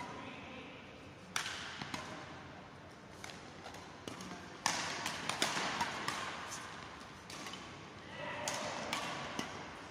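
Badminton rackets striking a shuttlecock during a rally: a handful of sharp, echoing hits, with a quick cluster about five seconds in, under faint voices in a large sports hall.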